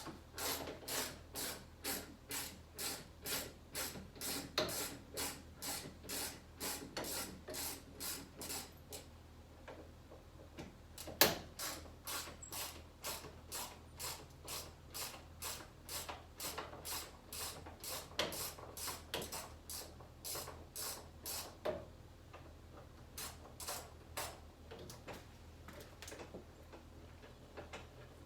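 Ratchet wrench with a hex (Allen) bit socket clicking through runs of strokes, a little over two a second, while working a Jeep Wrangler's door hinge bolts. The runs pause twice, and there is one louder knock about 11 seconds in.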